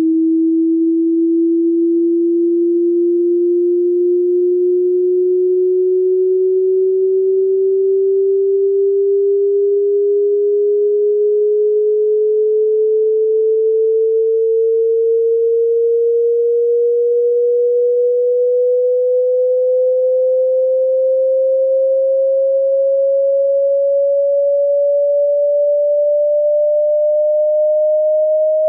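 Pure sine test tone of a hearing-test frequency sweep, rising slowly and steadily in pitch by nearly an octave at a constant loudness.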